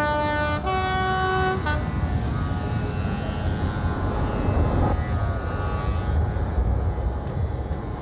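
A train horn sounds in three blasts that change pitch, high, lower, then high again, and stops about a second and a half in. A steady low rumble runs underneath.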